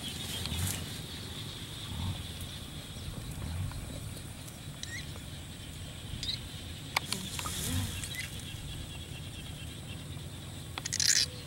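Metal wire fan guards being handled: a few light clicks and a brief scraping rustle near the end, the loudest sound, over a steady outdoor background hiss with low rumbles.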